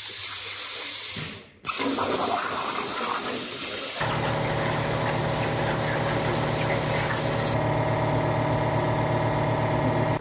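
CNC plasma cutter cutting steel plate: a steady loud hiss of air and arc, joined about four seconds in by a steady buzzing hum.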